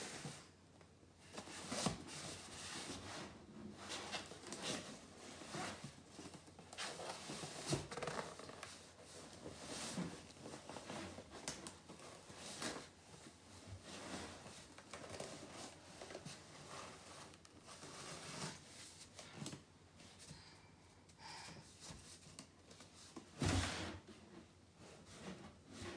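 Cardboard box rustling and scraping as a toddler shifts and handles things inside it, with irregular small knocks. A louder thump a little before the end as she steps out of the box.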